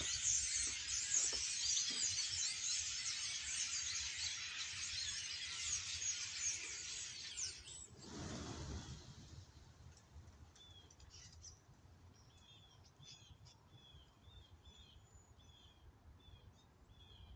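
A large flock of songbirds chattering together, many overlapping high calls. About halfway through the chatter stops abruptly with a short whoosh. After that one bird keeps repeating a short falling call note, about two a second.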